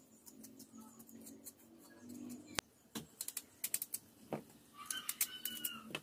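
A kitchen knife paring the skin off a green mango: faint, quick clicks and scrapes of the blade on the peel. They are sparse at first and come thickly in the second half.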